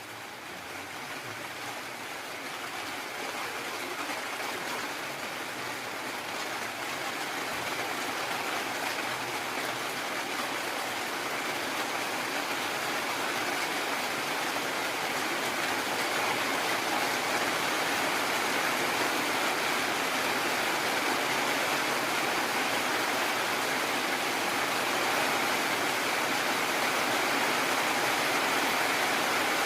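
Heavy rain pouring steadily, an even hiss that swells gradually louder over the first half and then holds.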